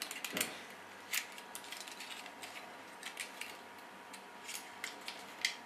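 Irregular light clicks and taps of a Walkera QR W100 mini quadcopter's plastic body and cover, handled by hand as the battery and wires are tucked in and the cover is closed.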